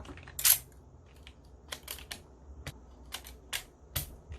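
Scattered plastic clicks and clacks from the keys of a plateless Cherry MX Board 3.0S mechanical keyboard being handled, in an irregular rhythm. One louder, longer clack comes about half a second in.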